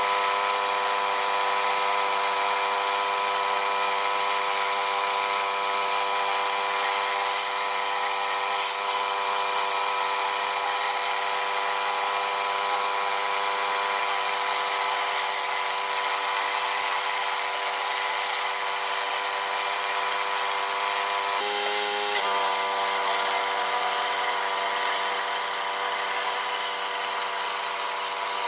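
Pressure washer running steadily with a rotary surface cleaner spraying water onto concrete: a constant machine hum under a hiss of spray, which briefly changes about 21 seconds in.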